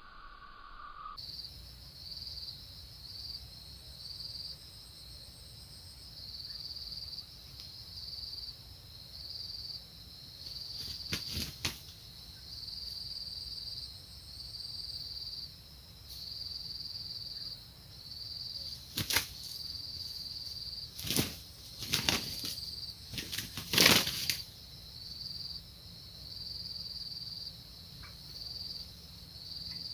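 Several short bursts of wing flapping from red junglefowl cocks scuffling, the loudest clustered about two-thirds of the way through, over a steady chorus of insects chirping in pulses about once a second.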